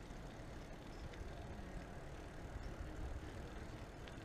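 Low, uneven rumble of wind buffeting a moving camera's microphone, with faint handling and travel noise.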